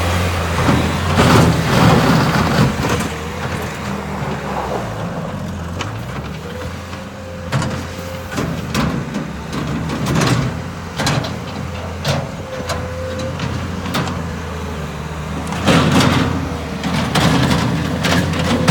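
Bobcat S220 skid-steer loader's diesel engine running steadily, its speed sagging briefly about six seconds in. Repeated knocks and clanks come over it, thickest near the start and again near the end.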